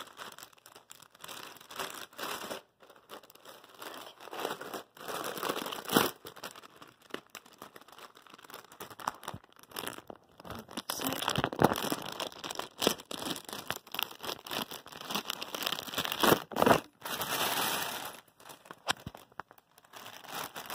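Clear plastic poly bag crinkling and rustling in irregular bursts, with a few sharper crackles, as a plush toy inside it is handled.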